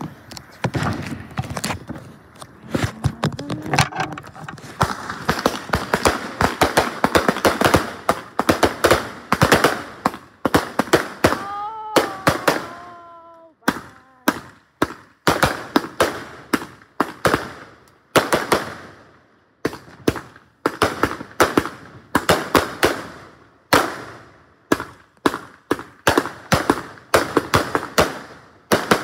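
Consumer fireworks going off at close range, a multi-shot cake firing: a dense, rapid run of bangs and crackles for about the first thirteen seconds, then a steadier series of shots in quick clusters.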